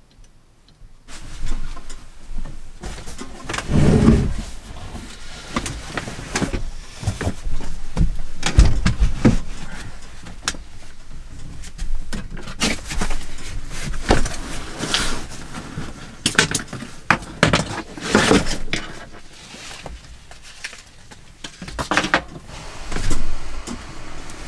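Knocks, thumps and rustling of a person moving about and handling things inside a small camper cabin, with the heaviest thumps about four seconds in and again near eighteen seconds.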